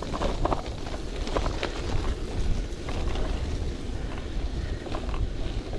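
Wind buffeting the microphone while a bicycle rolls over an off-road trail, the tyres rumbling, with scattered crunches and rattles.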